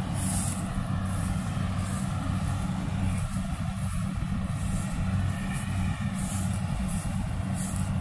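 Rice combine harvester's engine running steadily a short way off, a low drone that does not change. Brief high rustles come every second or so.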